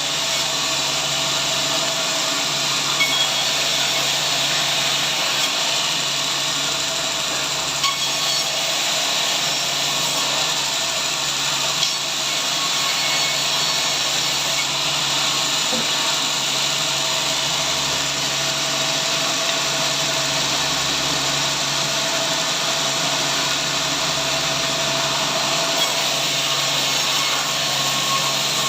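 A power saw cutting steadily through a large log, a continuous even noise with a few light knocks.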